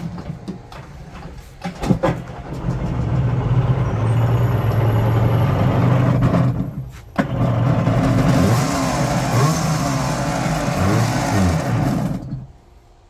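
A 440cc two-stroke jet ski engine being started for the first time in about 25 years: a few short cranking clicks, then it fires about two seconds in and runs. It drops out briefly around seven seconds, catches again and is revved up and down, then cuts off suddenly near the end.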